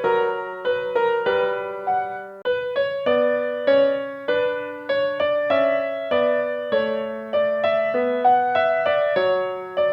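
Background music: a gentle piano melody of single struck notes, each ringing and fading, about one or two a second.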